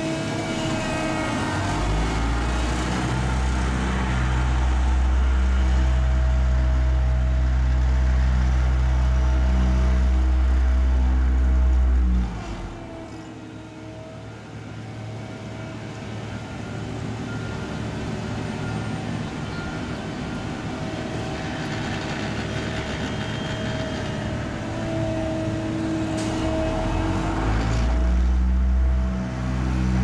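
Diesel engines of asphalt paving machines, an asphalt paver and a tandem steel-drum road roller, running steadily. A deep steady drone under the engines drops away abruptly about twelve seconds in and comes back strongly near the end.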